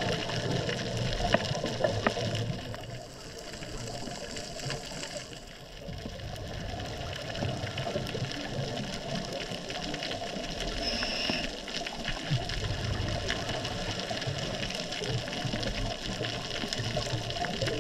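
Underwater ambience picked up through a camera housing on a reef dive: a steady rush of water with scattered faint clicks.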